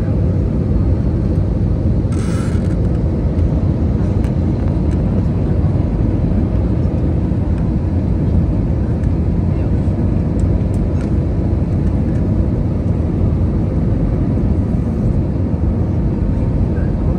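Steady cabin noise of an Airbus A320-214 on final approach, heard from a window seat over the wing: a constant low rumble of its CFM56 engines and rushing airflow. There is a brief hiss about two seconds in.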